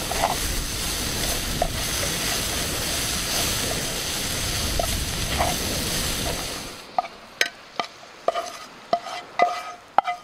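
Mushrooms and onions sizzling in bacon grease in a skillet while a spatula stirs them. About seven seconds in, the sizzle stops abruptly and gives way to scattered sharp clinks and scrapes of the spatula against the pan.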